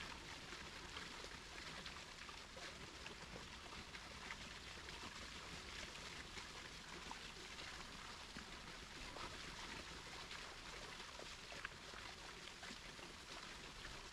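Faint, steady rush of running water from a small stream, with a few light scattered ticks.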